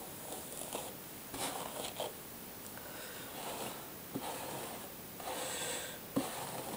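A hairbrush pulled through long, static-charged hair: a series of soft, scratchy swishes at uneven intervals, one stroke after another.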